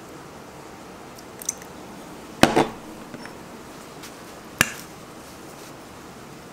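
Metal kitchenware clinks as a stainless measuring spoon and stainless mixing bowl are handled on a steel counter: a small click, then a loud cluster of sharp knocks with a brief ring about two and a half seconds in, and one sharp click about two seconds later. A faint steady hiss runs underneath.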